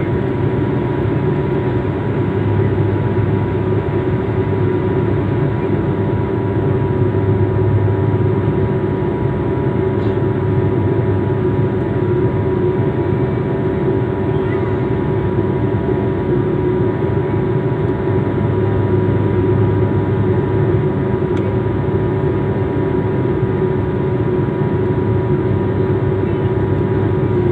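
Aeroplane engine drone: a loud, steady noise with a constant hum that does not change.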